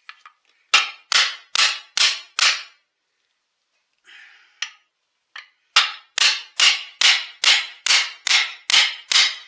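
Hammer blows knocking the Husqvarna 263 chainsaw's crankshaft out of its crankcase, freeing the main bearing from its housing. There are five sharp, ringing strikes, a pause of about three seconds, then about ten more at a steady rate of roughly two a second.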